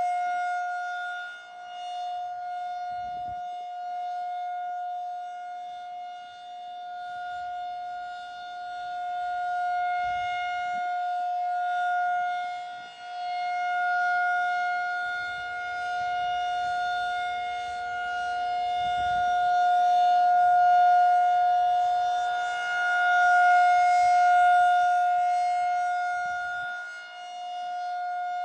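Federal Signal 2001-SRN rotating outdoor warning siren sounding its steady alert tone for a monthly test. The pitch holds level while the loudness swells and fades every several seconds as the siren head turns.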